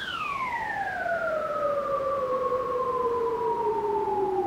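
Minimoog Voyager synthesizer tone, run through a Moogerfooger delay and ring modulator, sweeping down in pitch like a siren as two tones an octave apart glide together, the fall slowing until it nearly levels off into a low hum near the end. A faint hiss sits underneath.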